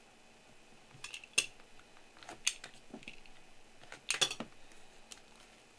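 Small shrink-wrapped card boxes being handled on a table: a few sharp clicks and knocks of cardboard and plastic wrap, the loudest about a second and a half in and again around four seconds in.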